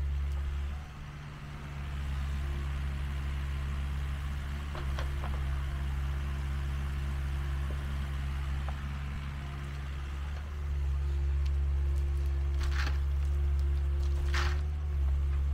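Mini excavator's diesel engine running steadily with a low drone, easing off briefly twice as the arm works. Near the end come two short, harsher noises a second and a half apart.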